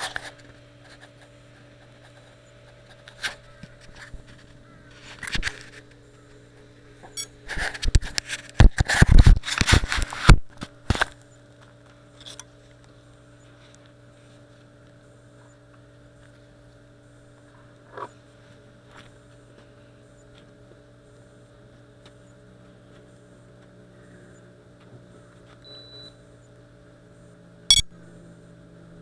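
Knocks, scrapes and rattles of a small camera being handled and fitted onto an FPV quadcopter, close on the microphone, loudest in a cluster a few seconds in, with a few single clicks later. A steady electrical hum runs underneath, and a short high beep sounds near the end.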